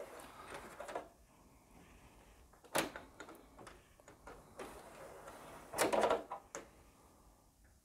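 Plastic mesh air filters being slid out of their slots in a split air conditioner's indoor unit: quiet plastic scraping and rustling, with one sharp click about three seconds in.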